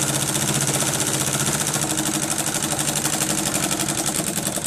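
Industrial embroidery machine stitching at speed: a steady, fast, even run of needle strokes over the machine's hum.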